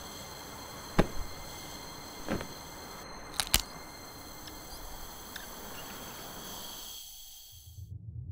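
Steady hiss of background noise with a few sharp clicks: the loudest about a second in, a softer one a little after two seconds, and a close pair about three and a half seconds in. It fades to silence near the end.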